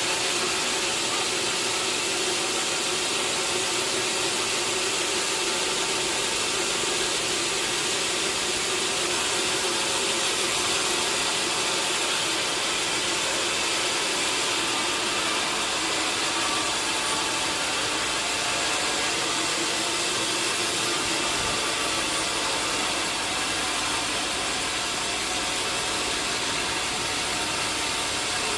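Sawmill machinery running steadily: an even, unbroken mechanical noise with a faint hum.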